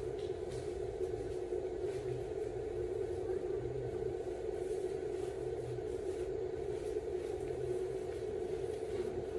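A steady, even hum, like a machine running, with a faint uneven low rumble beneath it.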